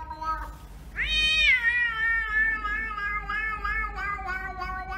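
Domestic cat giving one long, drawn-out meow. It starts softer, swells and rises sharply in pitch about a second in, then slides slowly down in pitch with a wavering wobble and does not stop.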